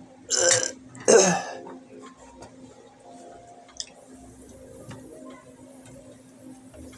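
A man burping loudly twice in quick succession, the second burp falling in pitch. A faint steady hum follows.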